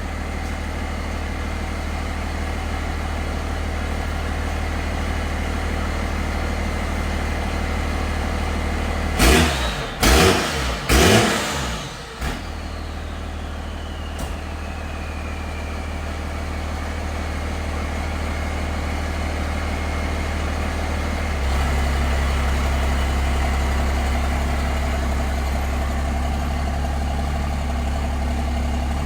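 Chevrolet pickup truck engine idling steadily. Three loud knocks come about nine to eleven seconds in, and about two-thirds of the way through the engine note steps down to a deeper, heavier hum.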